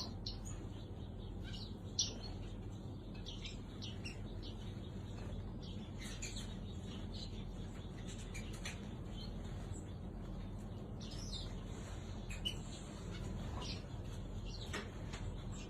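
A mixed group of small cage birds chirping together in an aviary: many short, high chirps overlapping at random over a steady low hum, with a sharp tap about two seconds in and again near twelve seconds.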